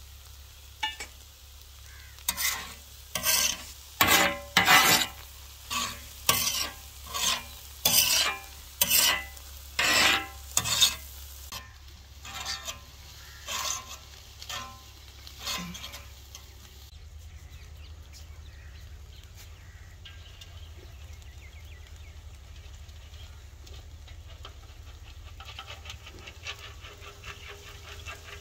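A metal spatula scraping and turning egg fried-rice mixture on a large flat griddle, about a dozen strokes roughly one a second over a steady sizzle. After about 16 seconds the strokes stop and only the quieter sizzle continues.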